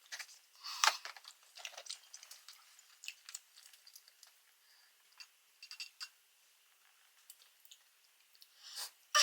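Close-miked eating sounds of someone chewing spicy rice cakes: soft, irregular mouth clicks and smacks, a louder cluster about a second in and a louder noise near the end.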